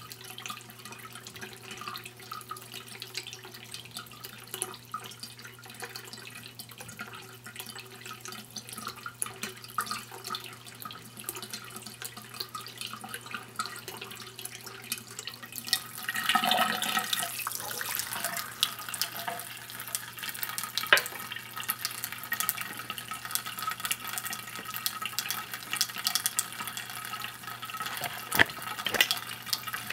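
A thin stream from a bathroom sink tap trickling into a small ceramic cup set over the drain, with a steady low hum underneath. About halfway through the cup is handled and taken away, and the stream then splashes straight into the drain, louder and brighter.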